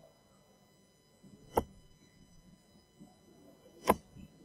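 Two steel-tip darts striking a Winmau Blade 4 Dual Core bristle dartboard, each a short sharp thud, about two seconds apart.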